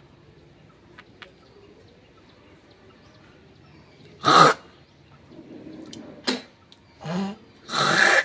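A person sneezing: one loud sneeze about four seconds in, then three shorter sneezing bursts close together near the end, the last one the longest.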